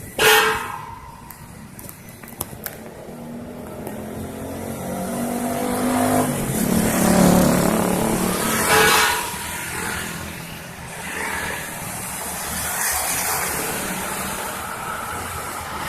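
A road vehicle passing close by, its engine rising in pitch as it accelerates, growing loudest about seven to nine seconds in and then easing off. A sharp loud bang comes right at the start.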